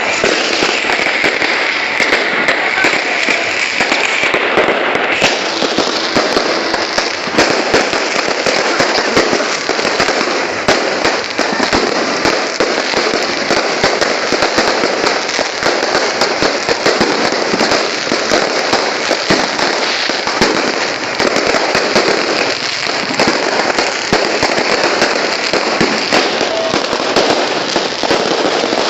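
Fireworks and firecrackers going off without a break: a dense, rapid crackle of many small bangs that keeps up throughout.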